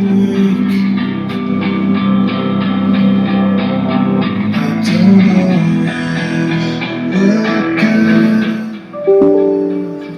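Guitar-led music with plucked and strummed notes, played through a Zebronics Fort Nex 90 soundbar in Bluetooth mode during a sound test. It dips briefly near the end.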